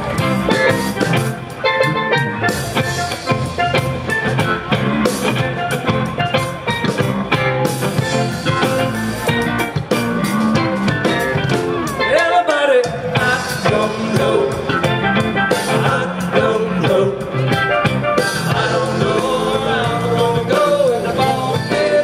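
Live band playing an upbeat song: electric guitars, bass, a drum kit and keyboards.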